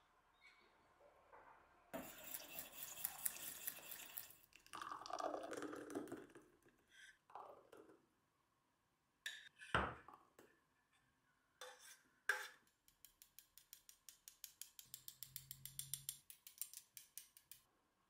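Quiet kitchen handling sounds while making a pumpkin milk pudding: a metal whisk and spoon clinking in a steel saucepan, the thick pudding being poured into glass tumblers, and glasses clinking as they are set down. Near the end comes a quick run of light taps, several a second.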